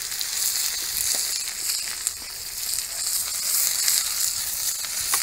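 Vegetables hitting hot oil in a steel wok and sizzling hard as they are stir-fried, a loud, steady hiss with crackling. The sizzle rises sharply right at the start as the food goes in.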